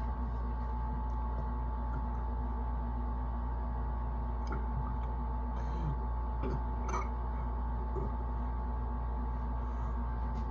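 Steady low hum with a faint steady tone above it, broken only by a few soft, faint clicks.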